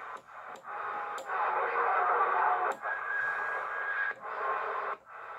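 Cobra 148GTL 11-metre CB radio putting out static hiss through its speaker as the channel selector is turned. The hiss breaks off with a short click at each change of channel, and a faint steady whistle sounds through it for about a second midway.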